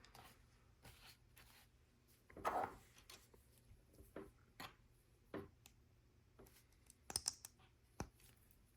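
Faint, scattered clicks and taps of plastic LEGO bricks being handled and pressed together, with a louder brief rustle about two and a half seconds in.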